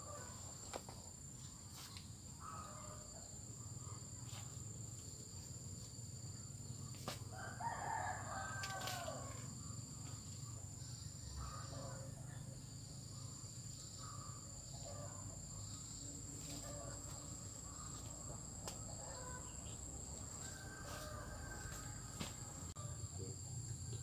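A rooster crows once, about eight seconds in, with a few fainter short calls around it, over a steady high-pitched insect drone.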